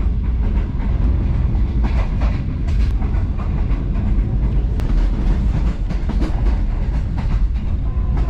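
Passenger train coach running on the line, heard from on board: a steady heavy low rumble of wheels on rail with scattered short clicks and knocks.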